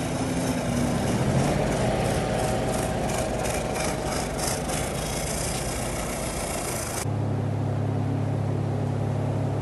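Diesel engine of a backhoe loader running steadily. About seven seconds in the sound cuts abruptly to a steady low machine hum.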